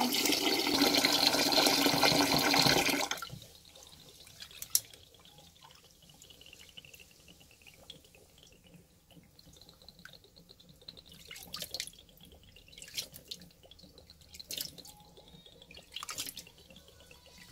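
Kitchen tap running into a metal pot of rice being rinsed, cutting off about three seconds in. After that there is faint sloshing and swishing as a hand stirs and rubs the rice in the cloudy water, with a few brief clicks and splashes.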